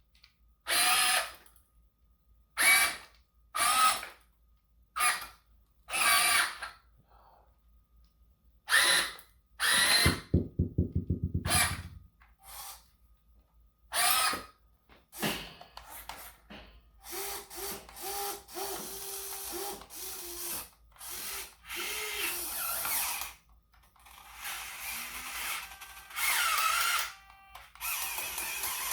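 A series of sharp clanks, about a dozen in the first fifteen seconds, with a brief rapid rattling buzz around ten seconds in. After that, a small electric motor whines in short, repeated start-stop bursts, as on an RC excavator's drive motors.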